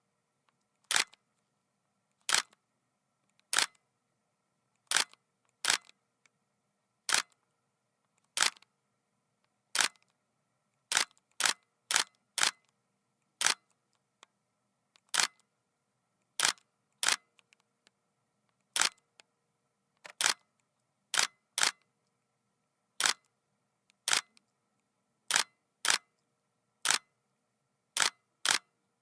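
Nikon D7200 DSLR shutter firing single frames, short sharp clicks at irregular intervals of about a second, sometimes two or three in quick succession.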